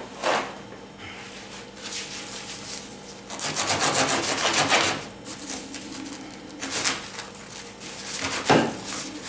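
A knife sawing back and forth through the crisp crust of a freshly baked sourdough loaf on a wooden cutting board: a rasping, scraping sound, densest in the middle. There is a sharp knock near the end.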